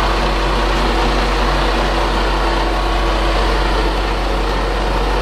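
Heavy diesel engine idling steadily, an even unbroken running noise with a faint steady hum.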